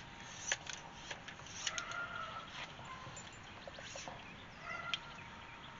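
Faint clicks and rustles of a tape measure being handled along a dead turkey's feathers, with two short pitched bird calls, one about two seconds in and one near the end.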